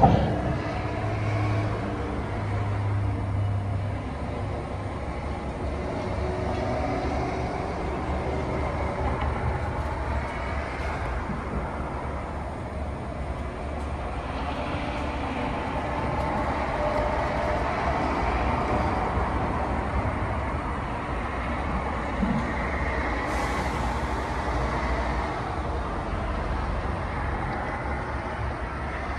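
Steady low rumble and hum of a MARTA rapid-transit train, with no distinct events.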